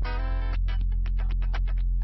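Background music: plucked guitar-like notes in a steady rhythm over a heavy bass.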